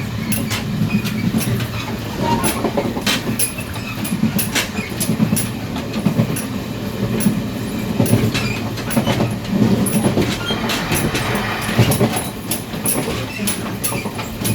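Running noise in the gangway between two Chu-Kuang Express passenger coaches on the move: a steady low rumble with many sharp, irregular clicks and clanks from the wheels and the coupled car ends.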